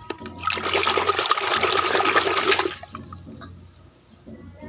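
A hand swishing and splashing in a bucket of soapy water for about two seconds, loud, then dying down to quieter drips and small splashes as a plastic toy is lifted out.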